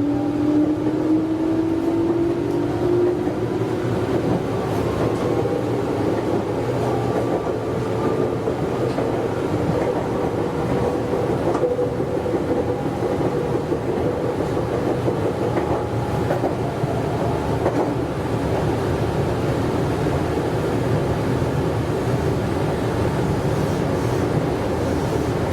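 Meitetsu 100 series electric train running on the line, its motor whine rising in pitch over the first few seconds as it picks up speed and then holding steady, over the running noise of wheels on rail with a few faint rail-joint clicks.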